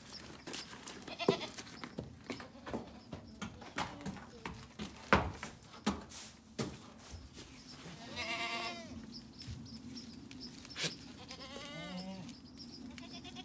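Goats bleating: a long wavering bleat about eight seconds in and a shorter one near the end, among scattered knocks and clatter.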